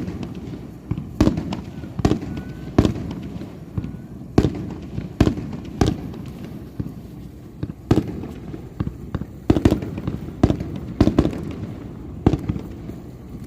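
Fireworks finale barrage: aerial shells bursting in quick, irregular succession, more than a dozen sharp bangs at roughly one or two a second over a continuous rumble and crackle.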